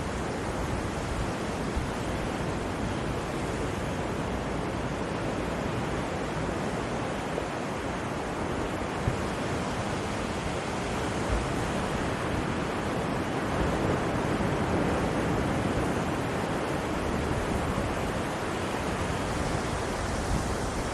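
Sea surf breaking and washing up a sandy beach, a steady rushing that swells a little past the middle.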